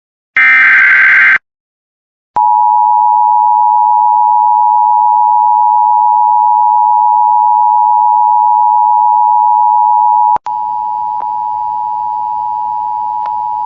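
Emergency Alert System signals: the last one-second warbling data burst of a SAME digital header, then, after a second's silence, the two-tone EAS attention signal held steady for about eight seconds. It cuts off abruptly and gives way to a quieter single steady alert tone over a background hiss.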